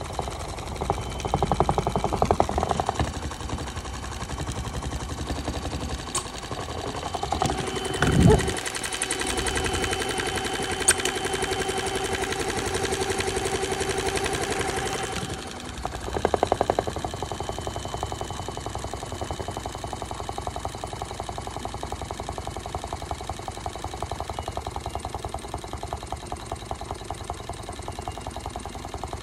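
Small motor of a modified toy Miele W1 washing machine driving its drum through an extremely unbalanced spin, with a rapid, even knocking as the off-balance tub shakes on its suspension. A heavy thump comes about eight seconds in, followed by a steady whine for several seconds.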